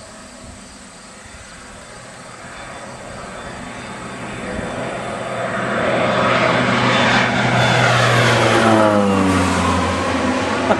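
Crop-dusting airplane flying in low and passing overhead: its engine grows steadily louder as it approaches, and its pitch falls as it goes over, about eight seconds in.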